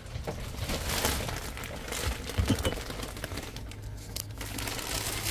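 Plastic wrapping crinkling and rustling, with scattered small clicks and a couple of soft knocks about two and a half seconds in as a cabinet door is handled, over a low steady hum.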